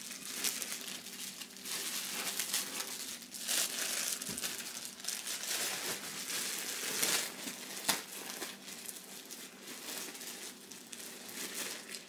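Plastic packaging bags crinkling and rustling as items are handled and unwrapped, with one sharp click about eight seconds in.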